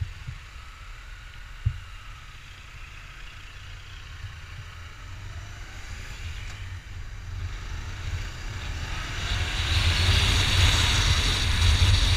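Motorcycle engine running at low speed with two short knocks in the first two seconds; from about eight seconds in, wind rushing over the microphone builds as the bike picks up speed.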